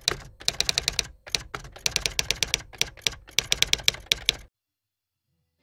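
Typing sound effect: runs of rapid key clicks with short pauses between them, stopping about four and a half seconds in.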